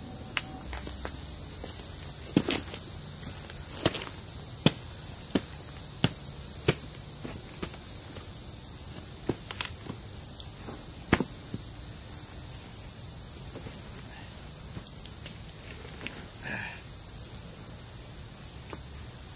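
Steady high-pitched drone of an insect chorus. About ten sharp knocks and thuds, mostly in the first ten seconds or so, as a wooden tabletop and a concrete block are set in place.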